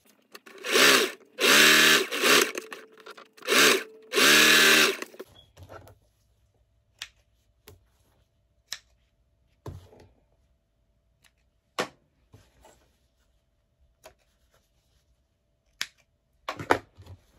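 Singer electric sewing machine running in about five short bursts over the first five seconds, its motor whining steadily as it stitches a seam. Then a few scattered sharp snips of small scissors trimming the threads.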